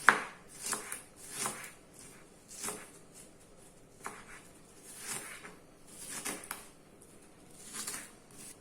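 Kitchen knife slicing an onion into thin strips on a cutting board: a series of short cuts at an uneven pace, roughly one a second.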